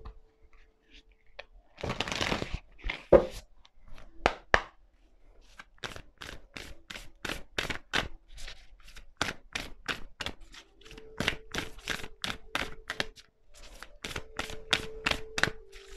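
A deck of oracle cards being shuffled by hand: a short rustle about two seconds in, then, from about six seconds in, a long run of quick card snaps and taps, two or three a second.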